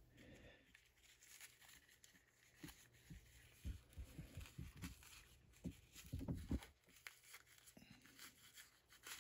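Faint handling sounds of a plastic action figure being worked into soft-goods fabric chaps by hand: scattered light rustles and small knocks, the loudest about four and six seconds in.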